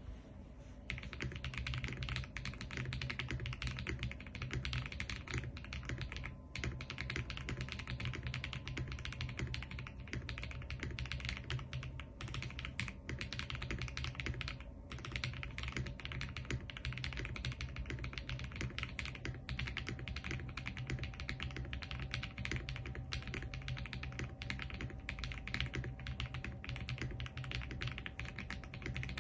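Typing on a CIY GAS67 mechanical keyboard with lubed Akko Cream Blue V3 tactile switches, a silicone plate dampener and Poron case foam: a fast, continuous run of keystrokes that starts about a second in, with brief pauses twice.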